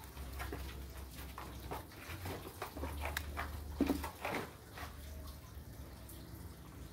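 Faint rustling and small clicks of thin plastic grafting film being handled and pulled off a pen it has been wound around, with a couple of short squeaks about four seconds in.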